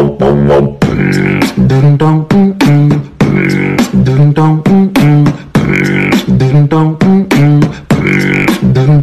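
Background music with a steady beat and a repeating pitched riff, looping about every two and a half seconds.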